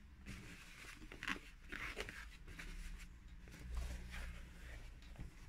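Denim fabric being smoothed by hand and a cardboard box being handled on a tabletop: faint, irregular rustles and scrapes with a few light knocks.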